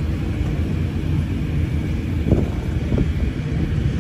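Low steady rumble of a Mahindra Thar SUV's engine running. Two short thumps come through, a little over two seconds in and again about three seconds in.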